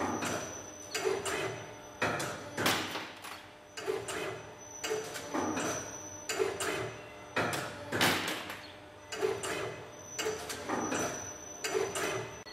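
CNC wire-bending machine cycling: a motor whine as the wire is fed and bent around the bending head, with sharp clacks at each stroke, repeating about once a second.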